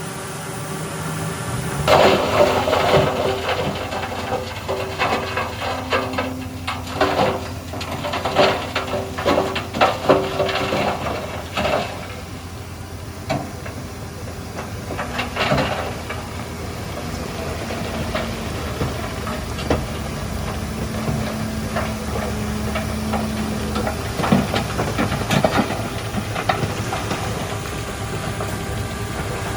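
Heavy diesel earthmoving machinery running steadily, with bursts of metallic clanking and rattling through the first half and again near the end. A steady held tone sounds for a few seconds past the middle.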